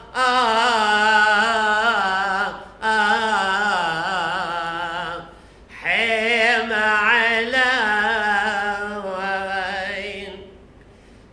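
A priest chanting solo and unaccompanied, a single male voice in long drawn-out liturgical phrases with a wavering vibrato. Three phrases with short breaths between them, the last tapering off shortly before the end.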